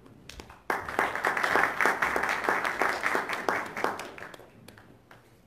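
Audience applauding: a few lone claps, then a burst of full applause about a second in that holds for about three seconds and dies away into scattered claps.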